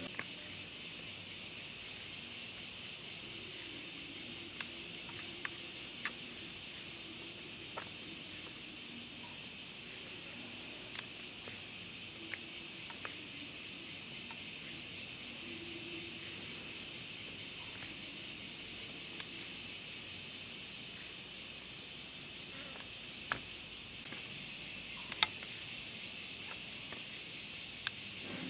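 Steady, high-pitched drone of insects, with a few short sharp clicks or snaps, the loudest near the end.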